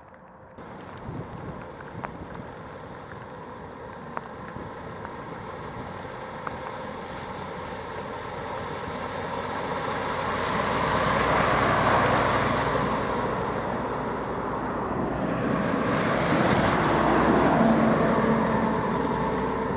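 Vehicles ploughing through deep floodwater on a road, their tyres throwing up a heavy spray. A Land Rover ambulance surges past about halfway through, and a double-decker bus follows near the end, its engine heard under the rush of water.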